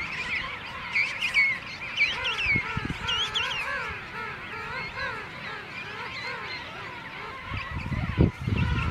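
A king penguin colony: many birds calling at once in a dense chorus of overlapping, wavering calls. Near the end a low rumble rises and there is one sharp knock.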